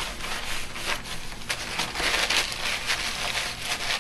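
Crumpled paper towel rubbing over a broad metal paint scraper, wiping it dry of oil paint: a run of uneven dry rubbing and crinkling strokes.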